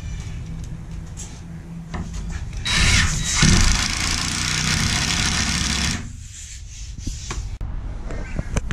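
Cordless drill running into the black plywood cabinet panel for about three seconds, starting about three seconds in, with a few handling clicks and knocks before and after.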